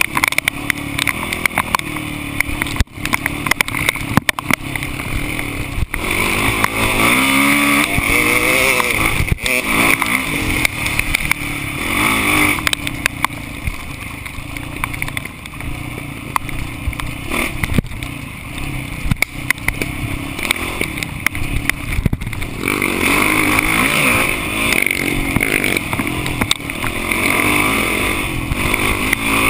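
Dirt bike engine running and revving, its pitch rising and falling as the throttle is worked, with frequent sharp knocks and rattles from the rough trail.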